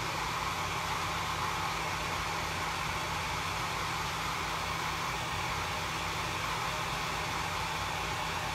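Handheld hair dryer blowing steadily on one setting, drying freshly applied chalk paste.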